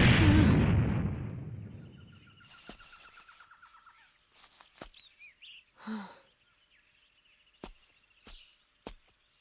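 A loud rumbling impact that fades away over the first two seconds, followed by quiet forest ambience with trilling bird chirps and a scattered handful of short sharp ticks.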